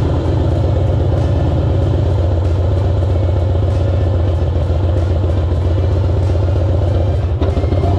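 Motor vehicle engine running steadily, a loud low drone with a fast, even pulse.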